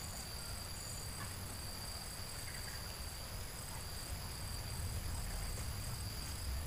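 Steady, high-pitched drone of insects, with a fainter pulsing insect note higher up and a low rumble underneath.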